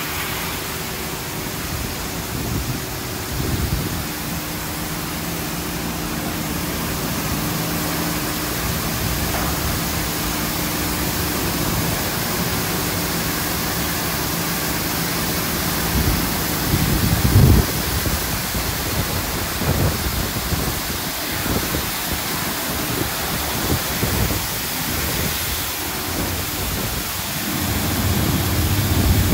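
High-pressure water jets from a Ryko Pulse touch-free car wash spraying down onto a car, a steady loud hiss of spray on the body and floor. A steady low machine hum runs under it for about the first half, and there is a brief louder thump about 17 seconds in.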